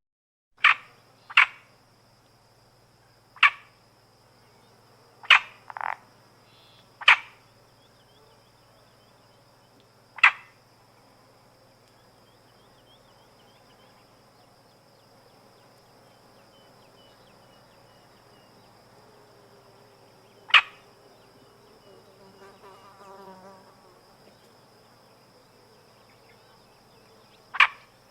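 A frog calling: about nine short, sharp croaks at irregular intervals, two of them close together near the start and then spaced several seconds apart, with the longest gap in the middle. Under them runs a faint, steady high-pitched buzz, and a softer rapid pulsing call sounds for a couple of seconds near three quarters of the way through.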